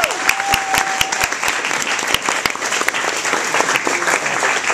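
Audience applause: many people clapping at once, dense and steady, as a held musical note dies away about a second in.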